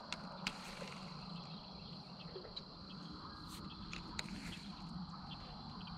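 A steady high-pitched insect chorus rings from the pond bank, over a faint low hum, with a few soft clicks.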